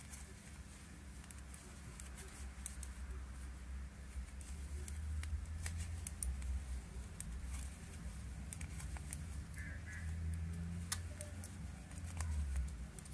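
Metal knitting needles clicking lightly and irregularly against each other as wool yarn is worked stitch by stitch, over a low rumble of hands handling the work.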